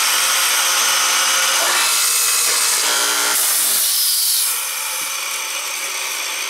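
Hinge boring machine's 56C-frame electric motor driving its multi-spindle drill head as the bits bore a hinge cup hole and two screw holes into a plywood door panel. About four and a half seconds in, the sound drops as the head lifts clear of the wood, and the motor runs on more quietly.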